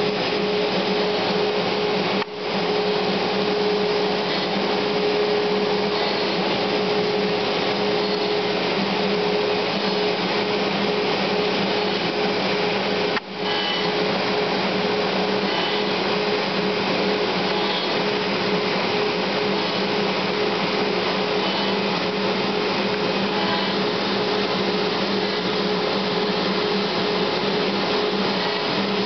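CNC router spindle and bit cutting a texture into a glued-up wooden block, with dust extraction drawing air through the dust shoe: a loud, steady machine whine holding a constant pitch, with two brief dropouts, about 2 and 13 seconds in.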